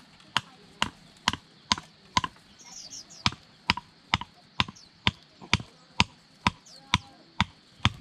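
A hand-held brick used as a hammer, knocking in an even rhythm about twice a second with sharp, equal knocks. Small birds chirp faintly in the background.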